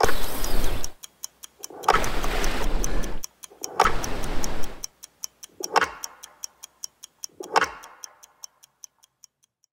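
Edited intro sound effects: a fast clock-like ticking, about six ticks a second, overlaid with five whooshing swells about two seconds apart. The ticking thins out and stops near the end.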